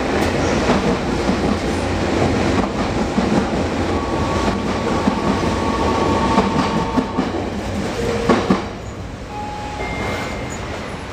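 Express train passing through on the adjacent track, heard through the open door of a waiting train: steady clattering wheel-and-rail noise with a thin high tone partway through, easing off after about eight and a half seconds.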